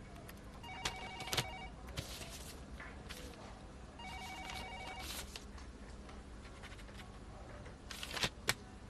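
Telephone ringing: two trilling rings about three seconds apart, each about a second long, with a few light knocks between them.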